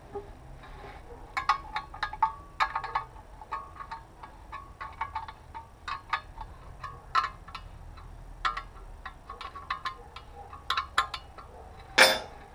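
Steel pieces clinking and knocking together in short, irregular ringing taps, with one loud knock near the end.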